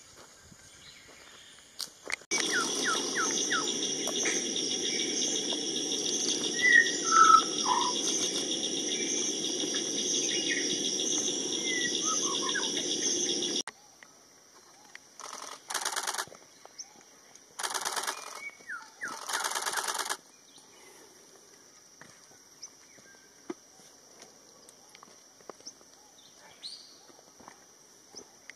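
Andaman shama giving a few clear falling whistles over a loud, steady buzzing drone. The drone starts about two seconds in and cuts off sharply after about eleven seconds. Three short loud buzzing bursts follow, then only faint chirps.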